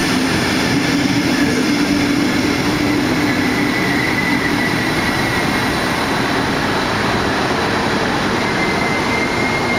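Double-deck regional passenger train running along the platform, with steady wheel-on-rail noise. A high squeal from the wheels rises out of it about halfway through and again near the end.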